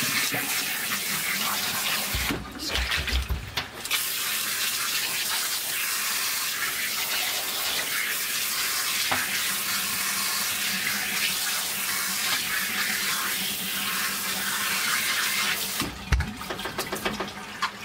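Water spraying steadily from a handheld shower sprayer onto a soapy wet cat and the bathtub, rinsing out the lather. The spray eases briefly with a few low thumps about two seconds in, and again near the end.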